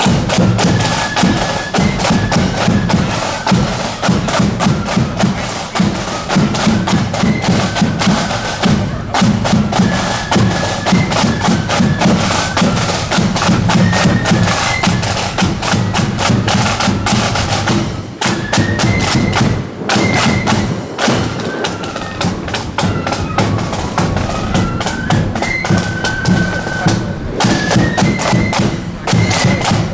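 Marching flute band playing: a high flute melody over rapid snare drum beats and bass drum.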